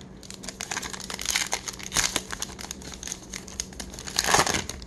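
Baseball card pack wrapper from a 2021 Topps Heritage blaster box crinkling as it is torn open by hand, with a burst of louder crackling near the end.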